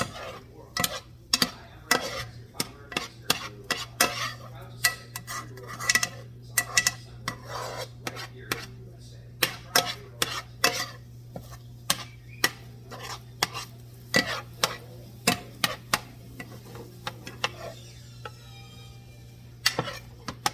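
A metal utensil scraping and clinking against a pot, with sharp clinks every half second to a second between short scraping strokes. A steady low hum runs underneath.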